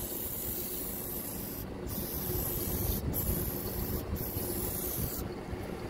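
Aerosol can of Lysol disinfectant spraying into a car's cowl air-intake vents: a steady hiss broken by three short pauses, stopping about five seconds in.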